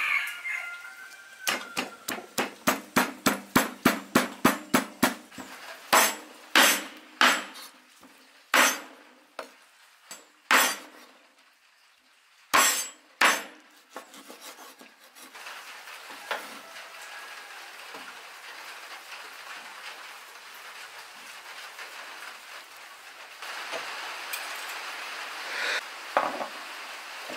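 A quick run of sharp knocks, about four a second, from a pestle pounding chilies in a wooden mortar. Then slower, spaced chops of a cleaver cutting through raw chicken on a wooden board. After the chops comes a quieter, steady hiss while the chicken is seasoned.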